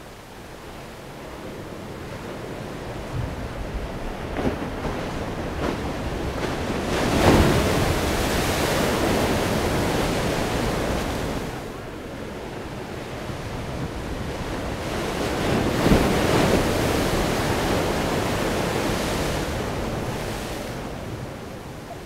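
Ocean waves breaking close to shore: two waves crash, about seven and sixteen seconds in, each followed by several seconds of whitewater hissing and washing in, with a steady surf wash between them.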